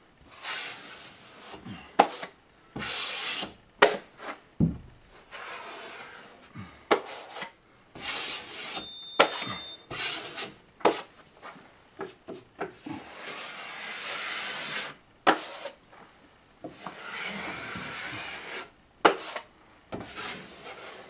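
Steel drywall taping knife scraping wet joint compound over paper tape on sheetrock seams during the first coat, in quick repeated strokes, with sharp clicks between strokes.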